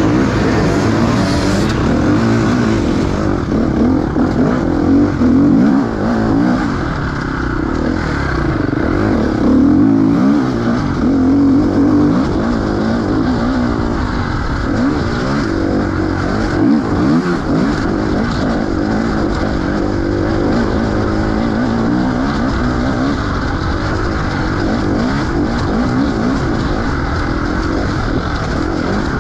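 Enduro dirt bike engine being ridden hard, its revs rising and falling constantly as the throttle is opened and closed.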